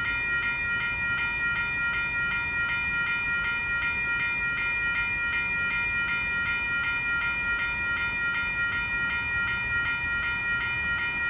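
Railroad crossing warning bell ringing steadily, about three strikes a second, over a low steady rumble.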